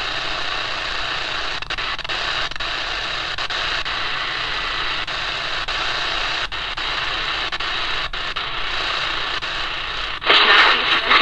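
AM static hissing steadily from a small portable radio's speaker while it is tuned at the bottom of the AM band, with a few faint clicks. A louder burst of noise comes in about ten seconds in.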